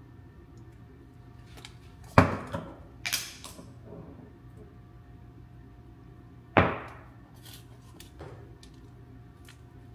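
Two sharp knocks about four seconds apart, the first followed by a brief clatter, over a faint steady low hum.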